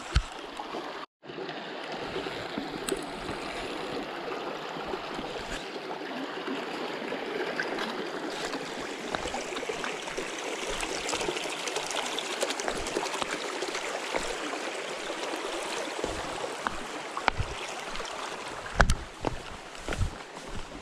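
Steady rush of a shallow, rocky creek's running water. In the last few seconds, a mountain bike's tyres and frame give short knocks and thumps as it rolls over the trail.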